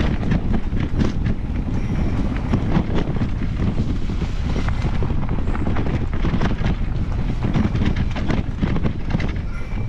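Mountain bike riding fast down a dirt forest singletrack: a steady low rumble of wind on the microphone and tyres on the ground, with constant rattling and clicking of the bike over bumps and roots.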